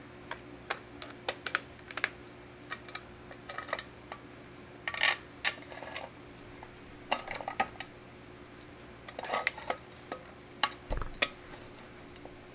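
Steel parts of a tractor loader's quick-attach latch clinking and clicking as the spring-loaded lever and its linkage are worked by hand, in irregular bursts, with a dull knock near the end.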